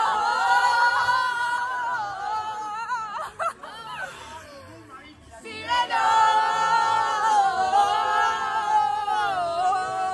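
A group of young women singing a chant loudly together, unaccompanied, holding long high notes in two drawn-out phrases with a quieter, ragged stretch in between.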